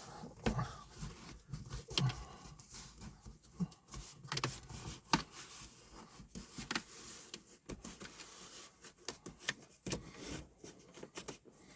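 Irregular clicks, taps and rustles of dash cam cables and plastic parts being handled inside a car cabin.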